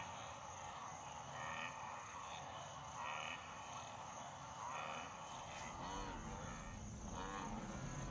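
Wildebeest herd ambience: a steady high insect buzz with short chirps recurring every second or so, and from about halfway a series of wildebeest grunts.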